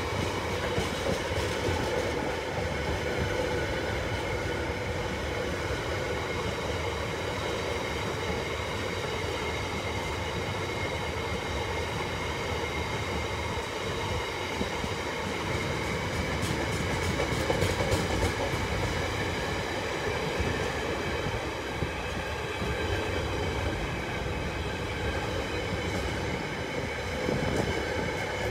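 Container freight wagons rolling past at speed, their wheels rumbling on the rails, with steady high ringing tones running through the noise.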